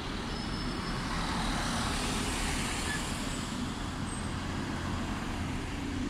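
Street traffic: motor vehicles passing close by, a steady rumble of engines and tyres that swells slightly as one goes past, then cuts off abruptly at the end.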